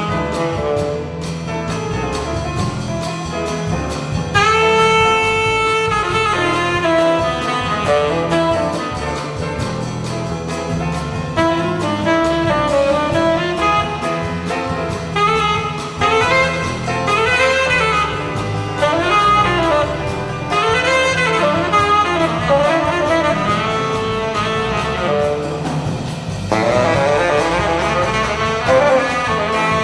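Live jazz band with a saxophone playing the lead over bass and keyboards: a long held note about five seconds in, then fast runs that swoop up and down.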